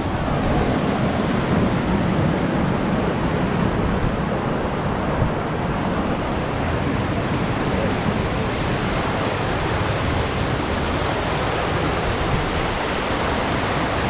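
Steady rushing of a creek cascading over boulders, an even, unbroken wash of water noise.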